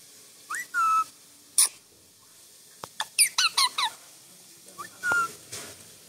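Young green Psittacula parakeet making short soft chirps and whistled squeaks while having its head scratched: a rising call about half a second in, a quick run of five or six falling chirps around three seconds in, and another call near the end.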